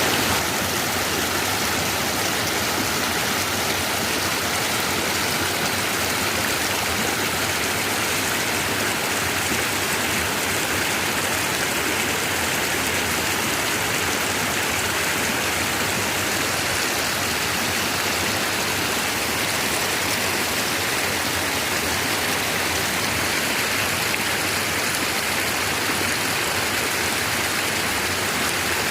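Mountain waterfall: falling water making a steady, unbroken rush.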